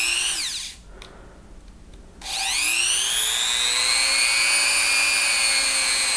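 GOXAWEE corded rotary tool (Dremel-style electric grinder) running unloaded. Its motor whine falls away as it spins down in the first second, then it starts again about two seconds in, the whine rising in pitch and settling to a steady high note. It begins to wind down again at the very end.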